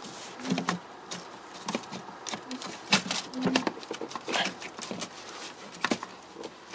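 Gloved hands pushing and working the plastic parts of a Peugeot 1.6 HDi diesel fuel filter housing into place: irregular clicks, knocks and rubbing of plastic at uneven intervals.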